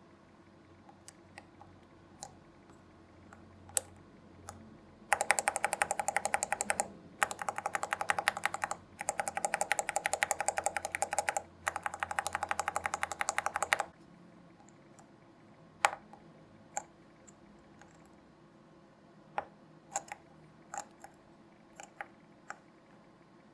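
Mechanical keyboard with Outemu Red linear switches and PBT keycaps being typed on: a few scattered keystrokes, then about nine seconds of fast, continuous typing broken by three short pauses, then single keystrokes again.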